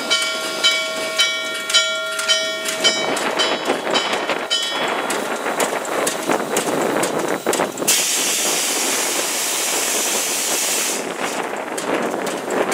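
Norfolk & Western 611 J-class steam locomotive rolling slowly in, its bell ringing in even strokes about twice a second that stop after about four seconds. About eight seconds in, a loud hiss of released steam starts suddenly and lasts about three seconds.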